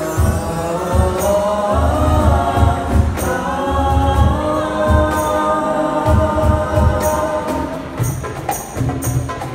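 Male nasyid vocal group singing in close harmony, backed by hand drums. Near the end, sharp percussion strikes come in on a steady beat.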